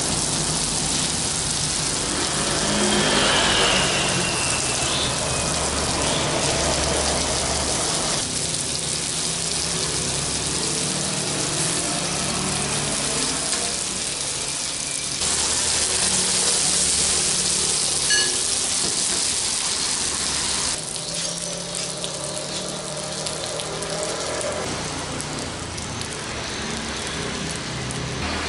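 Climbing perch (betok) fish sizzling in a hot non-stick pan over a high gas flame, glazed with sweet soy sauce; a dense steady sizzle whose loudness jumps up about halfway and drops back a few seconds later.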